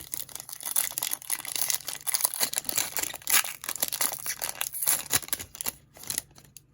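Trading-card pack wrapper being torn open and crinkled by hand: a continuous run of irregular crackles and rustles that stops about six seconds in.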